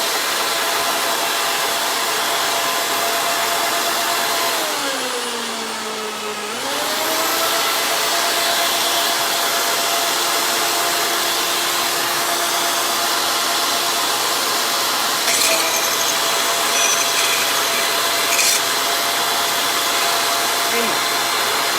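A power drill spins the wire coil through the jump-ring cutter. Its motor whines steadily, slows with a falling pitch about four seconds in, then speeds back up. A couple of light clicks come near the end. The cutter is not yet set right: the coil slides through instead of being cut into rings.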